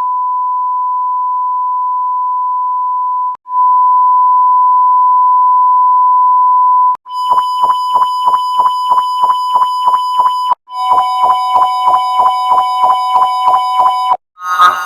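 A synthetic beep tone near 1 kHz, played in successively altered renderings. It starts as a plain steady beep and comes back louder after a short break. About seven seconds in it turns into a buzzy version that pulses about three times a second. Near ten and a half seconds a second, slightly lower tone joins it in the same pulsing.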